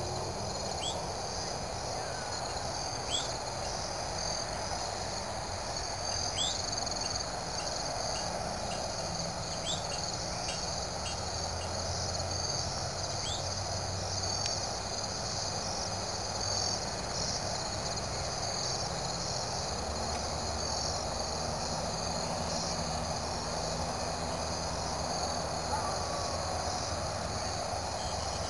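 Crickets trilling in a steady, pulsing high chorus, with a few short chirps in the first half and a steady low rumble underneath.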